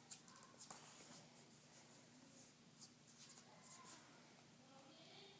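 Faint scratchy rustling with scattered light clicks, like objects being handled close by.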